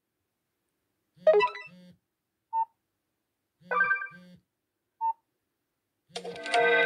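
An Android ringtone played on a Nokia phone's small speaker: a short chiming phrase repeats about every two and a half seconds, with one short beep between repeats. Low buzzing pulses sound under each phrase.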